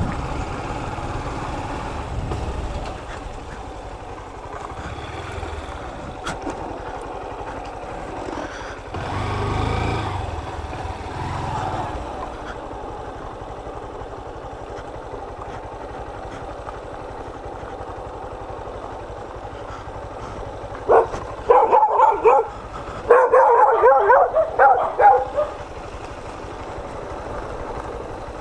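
Single-cylinder motorcycle engine of a Honda CG 160 Fan running at low speed. A dog barks in quick runs of loud barks from about three quarters of the way through.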